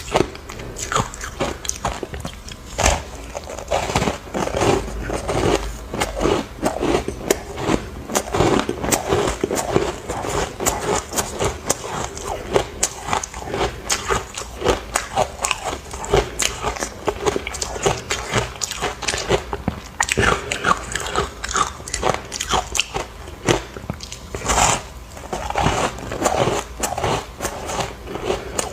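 Close-up crunching of ice being bitten and chewed: a steady run of sharp cracks and crackles as chunks of ice are broken up between the teeth.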